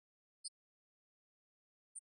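Near silence, broken by two very short, faint high-pitched chirps, one about half a second in and one at the very end.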